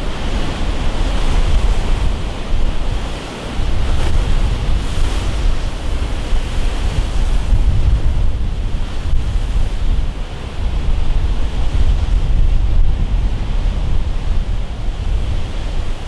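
Rough sea surf breaking and washing continuously, with heavy wind buffeting on the microphone.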